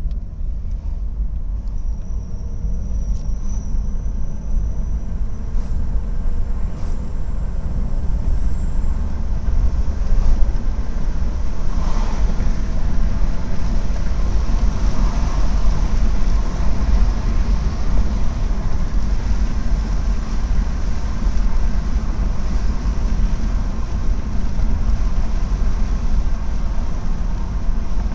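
Toyota Camry Gracia accelerating, a steady low rumble of engine and road noise with a faint whistle that rises in pitch over several seconds, the whistle the car makes under acceleration.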